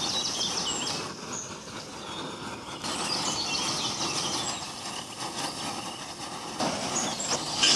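Outdoor ambience: small birds chirping on and off over a steady background rumble and hiss, with a faint steady hum through the middle part.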